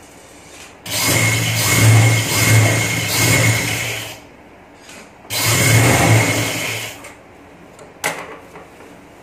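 Sewing machine stitching a pintuck along the fold of a trouser leg: two runs, the first about three seconds long, the second about a second and a half. A single sharp click follows near the end.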